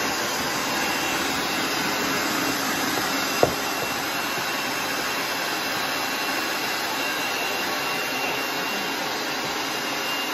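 Food processor motor running steadily as it shreds raw beets, with one sharp knock about three and a half seconds in.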